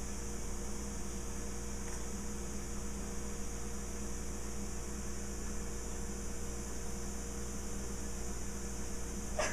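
Steady electrical hum over a faint hiss, unchanging throughout, with a brief short sound just before the end.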